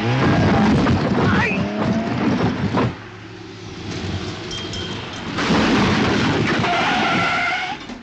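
Cars racing over loose roadwork gravel: engine and tyre noise from the first car, ending on a sharp knock just under three seconds in, then a second car, a Citroën ID 19, skidding across the gravel with tyres squealing as it loses its front tyre.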